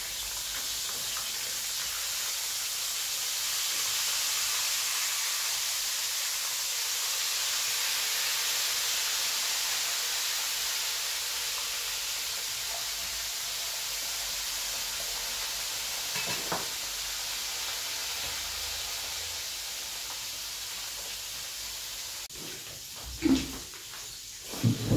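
Chicken pieces frying in a pan of hot oil lightly dusted with flour, a steady sizzle. It stops near the end, followed by a couple of short knocks.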